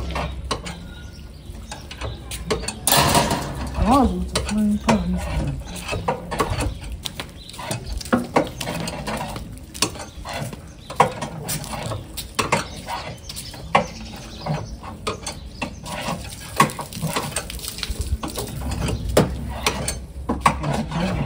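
Metal clicking and clanking from a car's scissor jack being cranked up and the wheel bolts being worked with a wrench during a wheel change.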